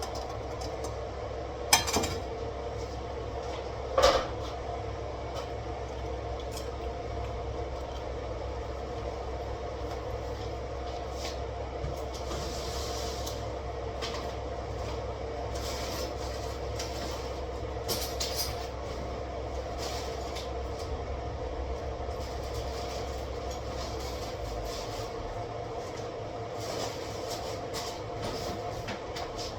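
Kitchenware being handled during washing up: two sharp clacks about two and four seconds in, then lighter, scattered knocks and clinks, over a steady low hum that cuts out near the end.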